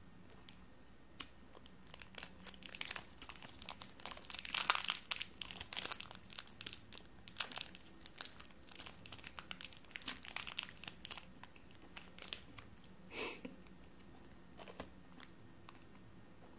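Silver foil wrapper of a small chocolate bar crinkling as fingers peel it open. It comes as a quick run of crackles, loudest about five seconds in, then two short crinkles near the end.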